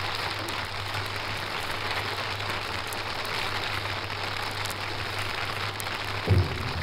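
Studio audience applauding, heard through the hiss and crackle of an old acetate disc recording with a steady low hum; a single low thump comes near the end.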